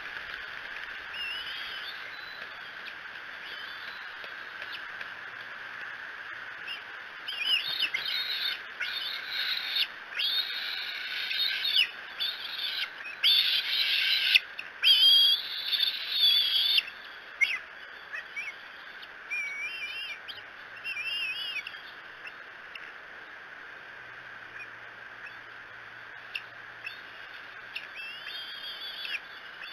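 Bald eaglets begging at the nest: runs of high, wavering, chittering whistles that are loudest and most continuous from about seven to seventeen seconds in, then come in shorter, softer bouts.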